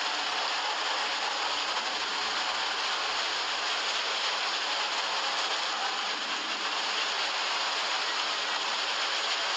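Lahar surge: a torrent of muddy floodwater carrying washed-down volcanic ash, rushing past in a steady, unbroken wash of water noise.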